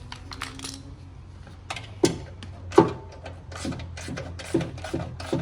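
Hand tools and metal parts being handled while the mower engine's kill-switch bracket is taken apart: irregular clicks and knocks that quicken to about two or three a second from about two seconds in, over a low steady hum.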